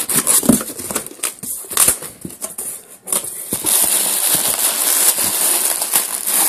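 Plastic packing bag crinkling and rustling as it is handled and pulled open inside a cardboard box: scattered crackles at first, turning to continuous crinkling about halfway through.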